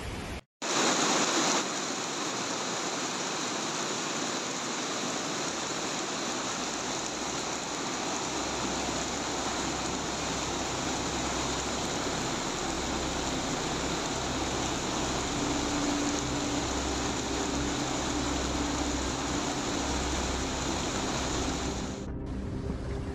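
Steady rushing noise, louder for its first second, starting abruptly after a brief gap and cutting off abruptly near the end.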